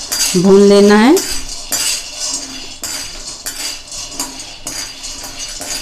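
Steel ladle scraping and clinking against a steel kadhai, stirring peanuts that are being dry-roasted without oil, with the peanuts rattling across the pan. The strokes come about twice a second.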